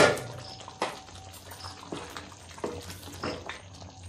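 A sharp clank at the start as the glass pan lid is set aside, then a wooden spatula stirring thick, simmering butter chicken gravy in a pan, knocking against the pan a few times.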